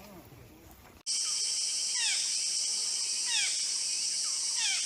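A steady, high-pitched insect chorus starts abruptly about a second in. Over it, a short falling animal call repeats about three times, roughly every second and a half.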